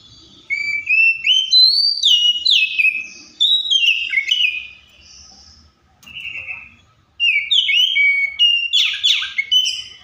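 Oriental magpie-robin singing: quick whistled notes that slide downward in pitch, strung into phrases. It sings in two runs, with a pause of about two seconds in the middle broken by one short note.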